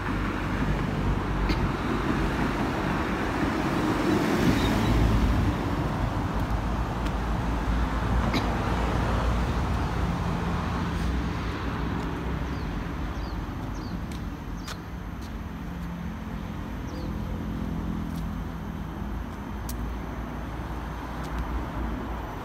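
Road traffic noise, a steady rumble that swells louder about four seconds in, with a few faint high chirps in the second half.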